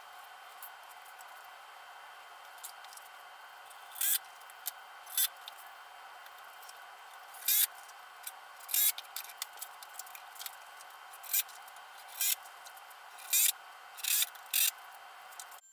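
Short bursts of metal scraping, about nine of them in the second half, as a metal pipe stretcher is worked into a pipe flange on a wooden trestle table base, over a steady background hiss.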